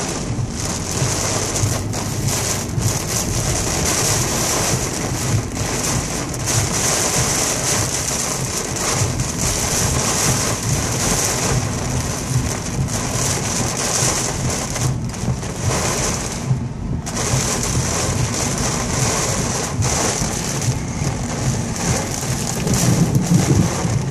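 Heavy rain pounding on a car's windshield and roof, heard from inside the car, a dense steady hiss with brief dips.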